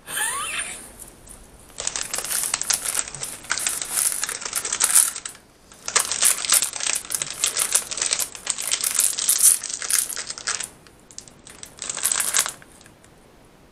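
Plastic wrapping of a Peeps marshmallow package crinkling and crackling as it is handled, in three long stretches. A short rising sound at the very start.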